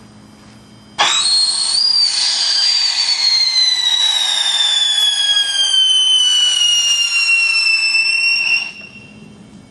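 A whistling firework going off: a shrill whistle over a rushing hiss starts suddenly about a second in, jumps up in pitch, then falls slowly for about seven seconds before cutting off.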